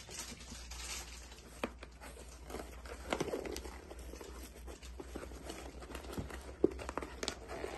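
Faint scattered taps and rustles of cardboard and bulb packaging being handled, over a low steady hum.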